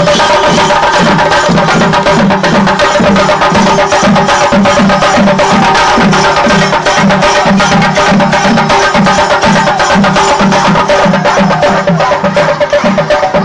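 Singari melam: chenda drums played loud in a fast, dense roll over a steady low beat of about two to three strokes a second, with a held tone underneath.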